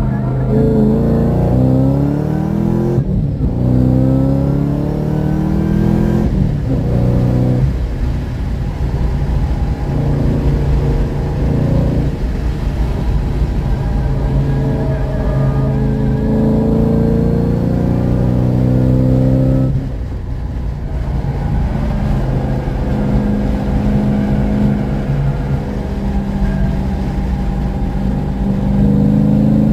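Car engine with forced induction, heard from inside the cabin, accelerating hard on track. It rises in pitch and drops back at each upshift, about 3 and 6 seconds in, then holds high revs through the corners. It falls off briefly when the driver lifts off the throttle around 20 seconds in, then pulls again.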